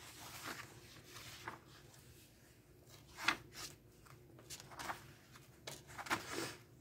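Heavy paper pages of a large hand-bound journal being turned by hand: soft rustles and brushes of paper, a string of short ones in the second half.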